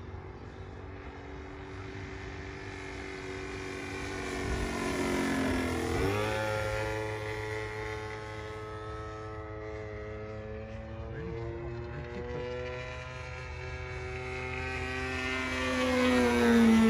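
Radio-controlled model aeroplane's motor and propeller buzzing overhead as it makes two fly-bys. The pitch falls sharply as it passes about six seconds in and again near the end, where it is loudest.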